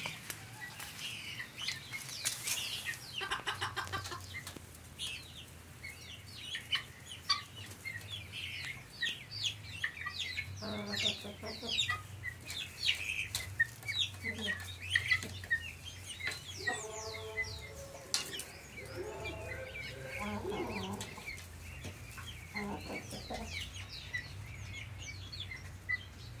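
A flock of Brahma chickens clucking, with several longer pitched calls around the middle, over many short high chirps.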